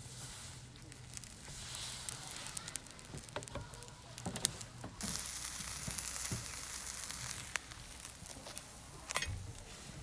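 Sizzling, like food frying in a pan, with scattered light clicks and taps; the sizzle grows louder about five seconds in.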